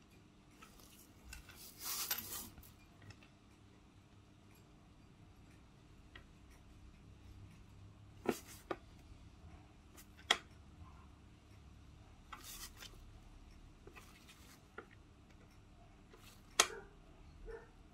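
Quiet handling of acrylic nail tools: a short brushing scrape about two seconds in, then a few light, sharp clicks spread out, such as a nail brush tapping a small dish, the sharpest near the end.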